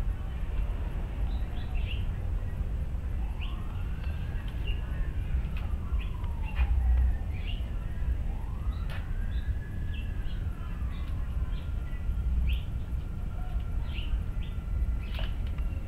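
Distant siren wailing in two slow rises and falls, over birds chirping and a steady low rumble. A couple of sharp clicks come near the middle.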